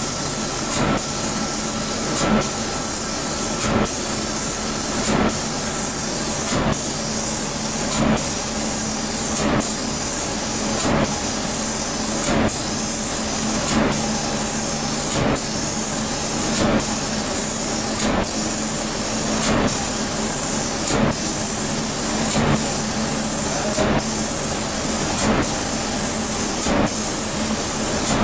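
Air spray gun of a 5-axis CNC spray-painting machine hissing steadily as it sprays paint over a wood door, cutting out briefly about every second and a half. A steady low hum runs underneath.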